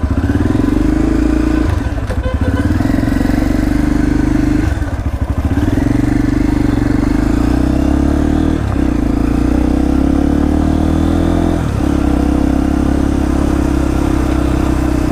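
Motorcycle engine running under way. Every few seconds the throttle drops off briefly and then picks back up, as with gear changes.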